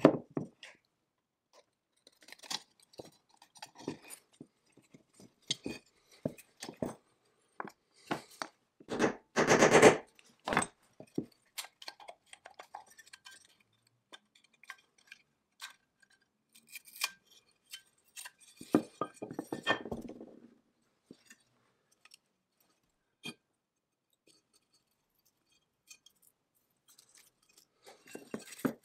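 Metal clinks, taps and knocks from the cast aluminium crankcase halves of a McCulloch 99 chainsaw being handled, taken apart and set down on a wooden workbench. A louder scraping rasp lasts about a second a third of the way in, and a duller scuff comes about two-thirds in.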